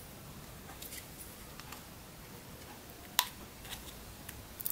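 Small scattered clicks and creaks of fingers prying at the seam of a plastic panda-shaped surprise-egg capsule whose lid will not come open, with one louder sharp click about three seconds in.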